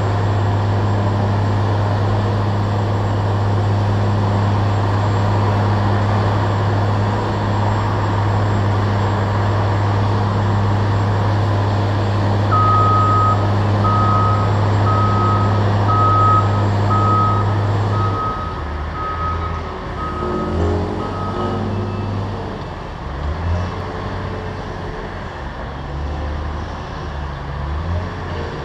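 Heavy construction machinery's engine running with a loud, steady low hum that drops away about two-thirds of the way in, leaving a lower, uneven engine rumble. A truck's reversing alarm beeps about once a second for roughly ten beeps through the middle.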